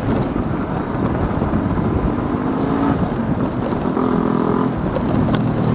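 Steady wind buffeting and road rumble from riding an electric scooter along a concrete road, with a faint pitched hum coming and going about two and four seconds in.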